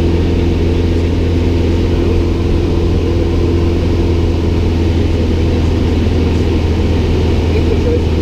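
Piston engine and propeller of a high-wing light aircraft droning steadily in flight, heard from inside the cockpit.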